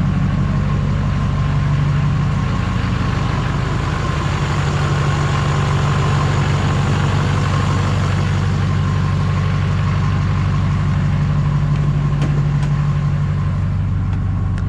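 Replacement LMM Duramax 6.6 L turbodiesel V8 idling steadily through a new muffler, with a faint steady whine above the low engine note.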